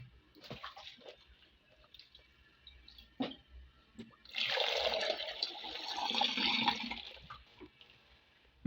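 Water running hard from a tap for about three seconds, starting about four seconds in and tapering off. Light knocks and clicks of handling come before it.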